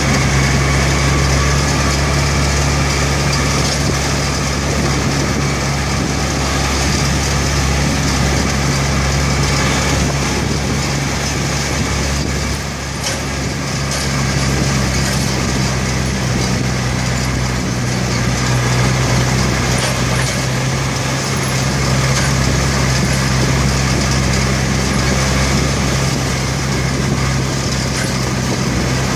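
Yanmar tractor's diesel engine running steadily as it travels at road speed, heard from close behind along with the following vehicle's own engine and wind noise. The level dips briefly about halfway.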